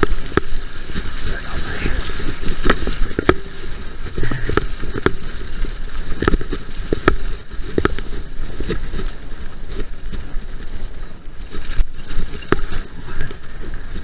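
Mountain bike riding fast over a rough, muddy, leaf-covered woodland track: a steady low rumble of tyres and wind on the microphone, broken by frequent sharp rattles and knocks from the bike over bumps.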